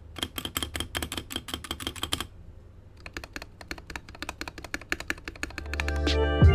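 Typing on a custom 65% mechanical keyboard with lubed Akko CS Ocean Blue tactile switches and modded stabilizers: a quick run of key clicks, a short pause about two seconds in, then more, softer keystrokes. Music swells in near the end.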